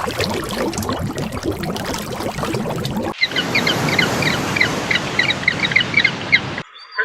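Two joined recordings. First comes splashing, running water: a steady rush of noise with many small clicks. After a sudden cut a bit past three seconds, a quick series of short high chirps plays over a steady hiss of running water.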